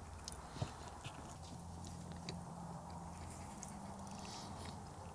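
Quiet eating sounds: a fork clicking now and then against a plate, with chewing, over a faint low steady hum.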